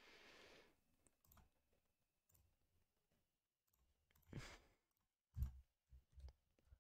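Faint, scattered clicks of a computer mouse as images are picked and tabs switched, with a short soft hiss at the start.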